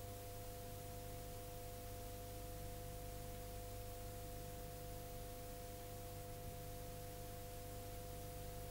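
Two steady pure tones held unchanging over a low hum and hiss.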